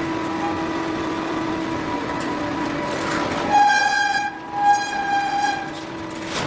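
Steady hum of running plywood-press line machinery, cut across about halfway through by two loud horn blasts, each about a second long with a short gap between them.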